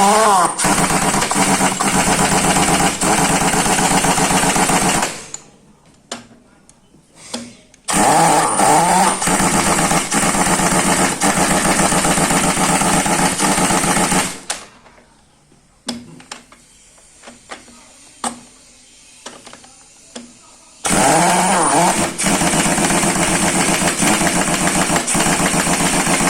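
Impact wrench hammering in three long runs of about five to six seconds each, driving the wheel nuts onto a truck trailer wheel. Each run starts with a rising spin-up, and there are light clicks between the runs.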